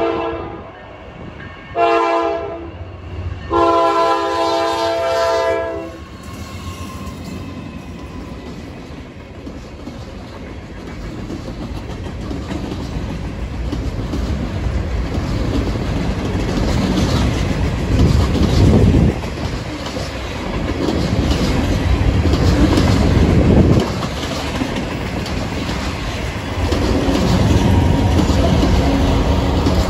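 A Norfolk Southern freight locomotive's horn sounds for the grade crossing: the end of one blast, then a short blast and a long one. After it, the mixed freight's cars roll past close by, their wheels clacking over the rail joints in a steadily building rumble that swells loudest in the last seconds.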